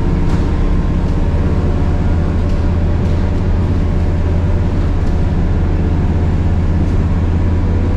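Scania K230UB bus's 9.3-litre DC9 diesel engine, heard from inside the cabin, running at a steady pitch with a low drone as the bus cruises, over road noise.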